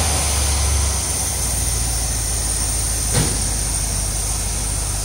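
1973 Corvette Stingray's Chevrolet V8, fed by a four-barrel carburetor whose throttle is worked by hand, running after 25 years of sitting. It eases down from a louder run in the first second and settles to a steady idle, with a single knock about three seconds in.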